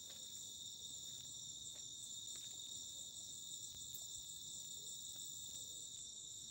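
Faint, steady chorus of crickets and other night insects: high-pitched trilling that holds on without a break, with a few light ticks scattered through it.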